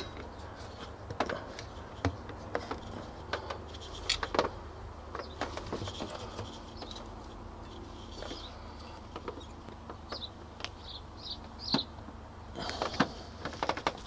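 Scattered light clicks and knocks from hands working a motorcycle tyre-changer tool on the wheel, with a short run of about five quick bird chirps about ten seconds in.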